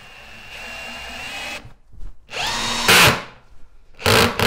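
Bosch GSB 18V-150 C brushless cordless drill/driver in screwdriver mode, driving a long screw into chipboard on a nearly flat battery. The motor runs in three goes: a steady whine for about a second and a half, a louder short run about two and a half seconds in, and the loudest run near the end.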